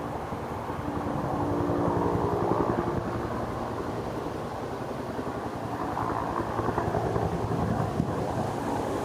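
Helicopter flying nearby with a fast, even rotor beat. It grows louder about two seconds in, eases, then swells again after about six seconds.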